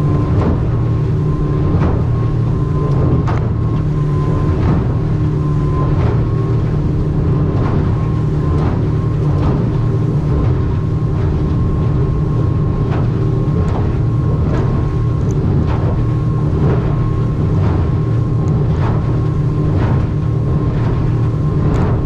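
Stabicraft 2050 aluminium boat running fast through chop: a steady outboard drone with a constant whine over it, and the hull slapping into the waves about once a second, with wind rushing past.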